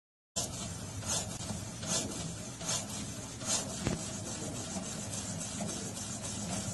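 Rhythmic scratchy rubbing strokes, about one every three-quarters of a second, over a steady hiss, with a single sharp click about four seconds in; the sound cuts in abruptly from total silence just after the start.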